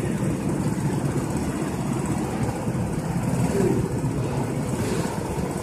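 Several go-kart engines idling together, a steady low drone, in an underground car park.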